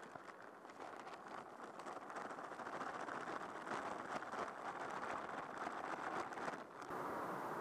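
Plastic bag crinkling and rustling as flour is shaken out of it into a steel pot of runny bannock batter. The rustling stops about seven seconds in.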